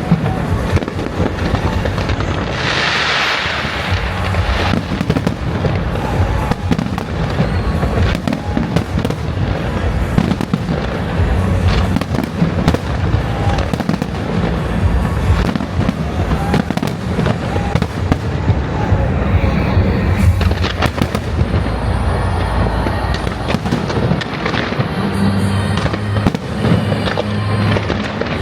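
Fireworks going off in a dense, continuous barrage of bangs and crackles, with a burst of hiss about three seconds in.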